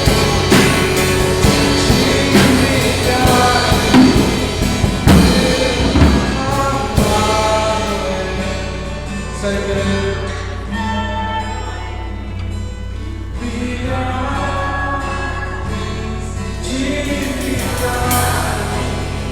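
Live worship music recorded on a phone: singing over acoustic guitar and a drum kit, with strong drum hits in the first several seconds, then the band drops back to softer sustained playing under the singing.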